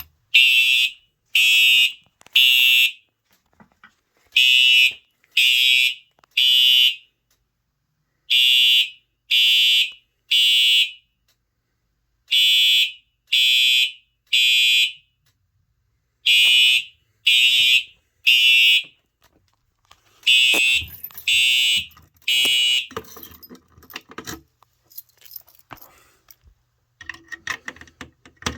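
Simplex TrueAlert horn strobe sounding in the temporal-3 evacuation pattern. It gives three short, high-pitched horn blasts, pauses, and repeats, six rounds in all. It stops about 23 seconds in, leaving light clicking and rattling.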